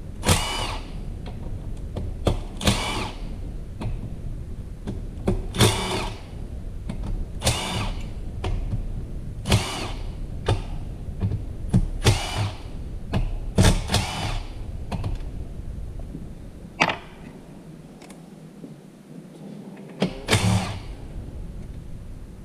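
Cordless drill-driver in short trigger bursts, about a dozen, zipping bolts out of an automatic transmission's valve body, with metal clinks of bolts and parts on the bench. A low hum underneath drops out for a couple of seconds near the end.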